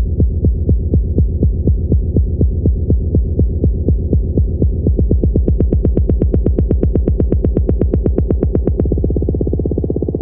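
Electronic music: a steady, fast, throbbing bass pulse of about five beats a second. It brightens through the middle, then thins out near the end, as in a build-up.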